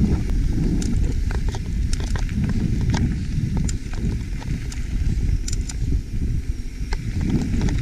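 YT Capra full-suspension mountain bike rolling downhill over dirt and loose rock: a steady low rumble of wind and tyres on the microphone, with scattered clicks and rattles as the bike runs over stones.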